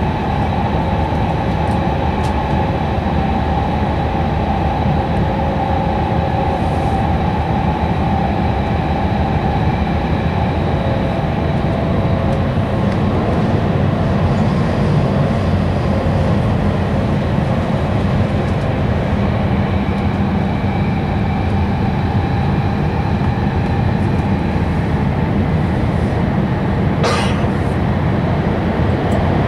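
Cabin noise inside an E5 series Shinkansen running through a tunnel: a steady deep rumble of wheels and rushing air with faint steady whining tones over it. A short sharp hiss or clack cuts through once near the end.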